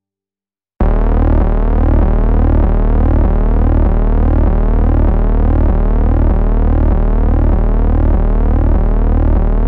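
Electronic background music: after a brief silence, a loud synthesizer drone starts about a second in, with a bass pulsing about twice a second and repeating gliding tones above it.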